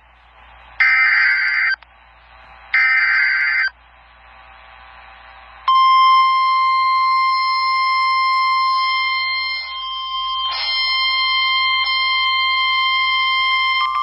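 Emergency Alert System severe thunderstorm warning tones. It opens with the last two bursts of the SAME digital header, warbling data tones of about a second each. After a gap of about two seconds, the steady single-pitched weather warning tone starts about six seconds in and holds. The tones signal that a warning message is about to follow.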